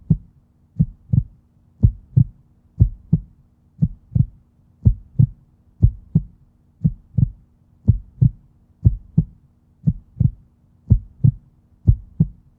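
Normal heartbeat: steady paired lub-dub heart sounds, about one beat a second in an even rhythm.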